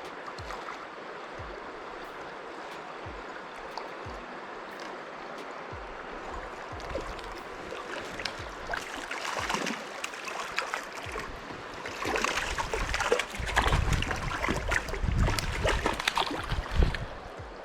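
River water running steadily over rocks. Through the second half, irregular splashing and knocking comes and goes, loudest near the end.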